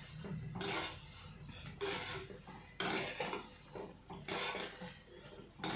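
Wire spider skimmer knocking and scraping against the side of a wok about once a second as gulab jamun dough balls are turned in hot oil, over a faint sizzle of the frying oil.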